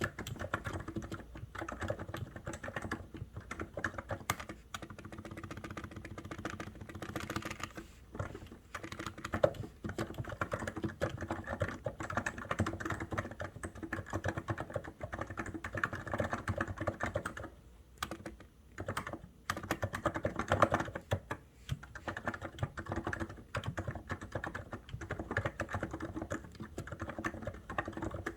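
Fast continuous typing on a COX Endeavour mechanical keyboard, the keys clacking in quick runs, with two brief pauses about two-thirds of the way through.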